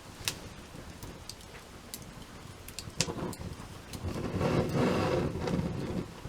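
Wood fire crackling, with sharp pops scattered throughout. Between about four and six seconds a louder low rushing sound swells and fades.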